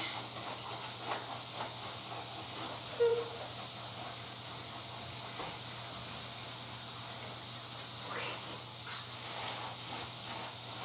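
Hands scrubbing a wet, soapy standard poodle's coat in a grooming tub, over a steady hiss. There is one short squeak about three seconds in.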